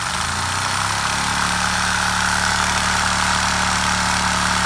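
A Lego vacuum engine runs under suction from a household vacuum cleaner on its low setting, with the air hiss of the vacuum underneath. It comes up to speed over the first second or so, then runs steadily with its throttle pinned nearly full to break in the new piston.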